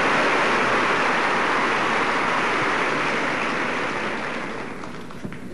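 Large audience applauding, a steady dense clapping that dies away over the last second or so.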